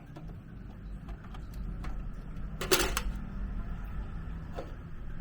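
Small clicks and knocks of computer parts being handled, with one short scraping rustle about three seconds in, over a low steady hum.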